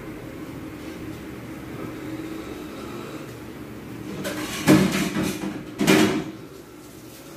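A steady low hum, broken about four and a half seconds in by two loud knocks with a short rattle, a little over a second apart.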